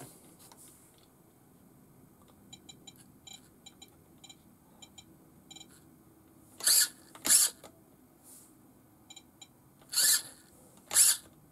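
RC transmitter beeping in quick short runs as its end-point adjustment buttons are pressed, with a few short whirrs from the buggy's servo as it swings to the limits of its travel.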